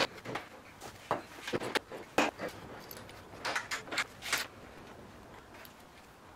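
Light clicks and knocks of a wooden strip and metal C-clamps being handled and clamped onto the wooden frame of a small boat. There are scattered single knocks in the first two seconds and a quick cluster about three and a half to four and a half seconds in.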